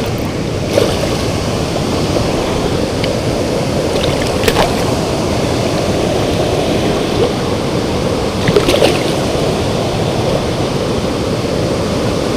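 Steady rush of river water pouring over and below a spillway. A few brief sharp sounds stand out about a second in, near the middle and again around two-thirds of the way through.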